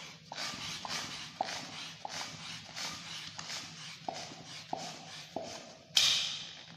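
A long latex modelling balloon being inflated with rhythmic pumped strokes of air: a hiss about every half second or so, each ending in a short falling squeak. A louder, longer rush of air about six seconds in.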